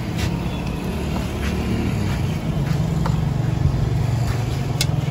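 A motor vehicle running close by: a steady low rumble that grows louder about halfway through, with a few light clicks over it.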